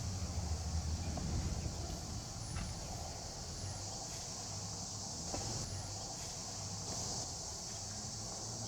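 Chorus of cicadas: a steady, high, shrill hiss, with a low rumble of traffic underneath that is stronger in the first second or so.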